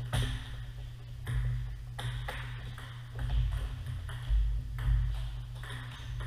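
Celluloid-type table tennis ball being played in a rally: sharp, irregular clicks as it strikes the paddles and bounces on the table, spaced about half a second to a second apart. A steady low hum runs underneath.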